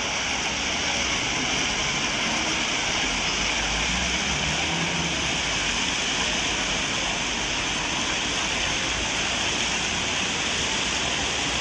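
Fountain jets splashing into their basin: a steady, even rush of falling water.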